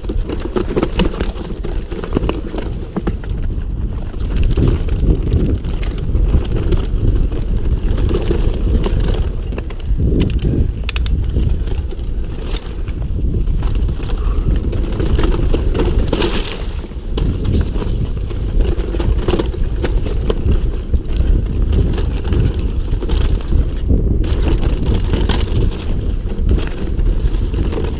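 Mountain bike riding fast down a rocky dirt trail, heard from a camera on the rider: a steady rumble of wind on the microphone and tyres over dirt and stones, with frequent rattles and knocks from the bike over the bumps.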